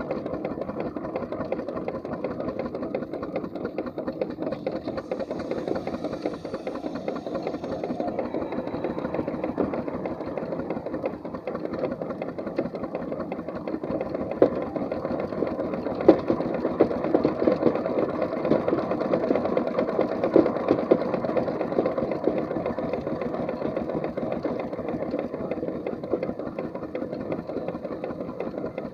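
A 4-inch scale McLaren steam traction engine running on the move: a steady, rapid mechanical clatter of its motion and exhaust, with a few sharper knocks around the middle.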